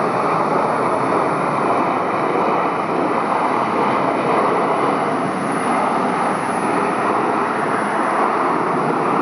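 Steady rushing jet noise from a Boeing 787-8's Rolls-Royce Trent 1000 engines as the airliner lands and rolls out on the runway, heard from a distance.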